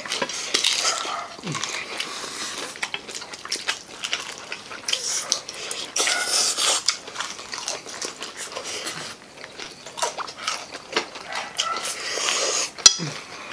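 Several people chewing and biting into crispy breaded fried chicken, with crunches, wet mouth sounds and lip smacks overlapping, and a sharp click near the end.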